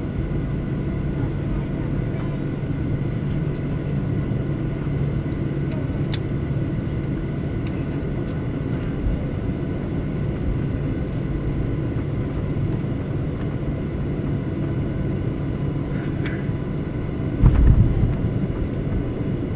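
Steady hum and drone inside the cabin of a Boeing 737-900 airliner on the ground after landing, with several constant tones. A short, louder low thump comes near the end.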